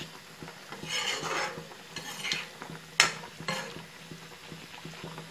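Metal spoon stirring a boiling fish curry in a black wok: wet swishing and scraping through the broth, with a sharp clink of the spoon against the pan about three seconds in and a few lighter taps after it.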